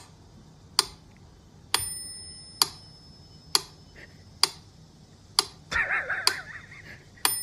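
Steady ticking, one sharp tick a little under once a second, like a clock. Twice a tick is followed by a bell-like ring, and a short warbling sound comes in a little before the end.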